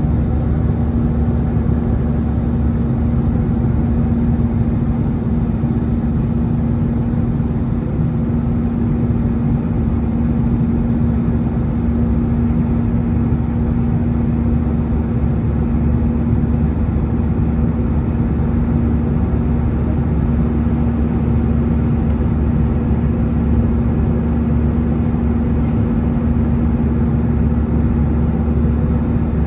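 Airbus A320 jet engines and airflow heard inside the cabin during the climb after takeoff: a steady, loud drone with a deep rumble and a constant low hum.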